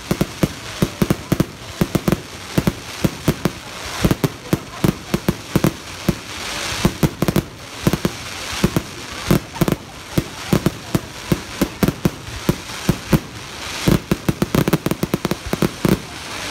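Fireworks display: aerial shells bursting in a rapid, unbroken string of bangs and crackles, several a second, with a hissing rush swelling around the middle.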